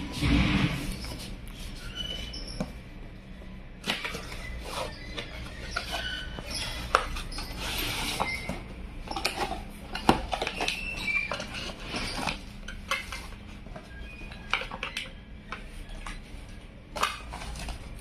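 Cardboard packaging being opened by hand: a box's inner tray slid out and its flaps folded back, with irregular rustles, scrapes, taps and the odd short squeak of card on card.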